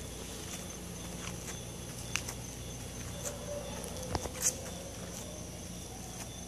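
Night ambience of crickets chirping steadily at a high pitch over a low steady hum, with a few short sharp clicks about two seconds in and again around four seconds in.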